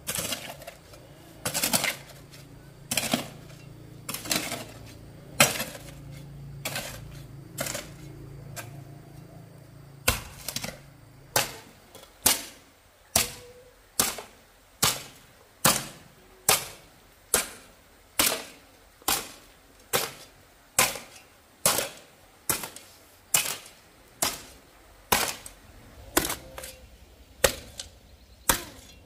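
Repeated sharp knocks, uneven at first and then steady at a little over one a second. A low hum runs under the first third and stops.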